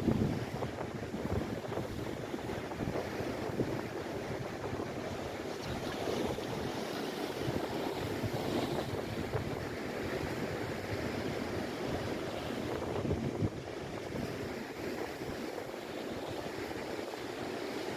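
Sea waves surging and breaking against a rocky shore in a steady, continuous wash, with wind rumbling on the microphone.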